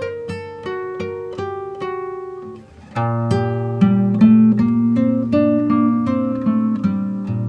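Background music of plucked acoustic guitar playing a melody. About three seconds in it dips briefly, then comes back fuller with a low bass line under the notes.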